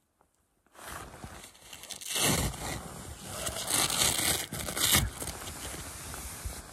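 Rustling and scraping of a parka's shell fabric and of packed snow as a person shifts about inside a quinzee snow shelter. Louder brushes come about two, four and five seconds in, after a brief silence at the start.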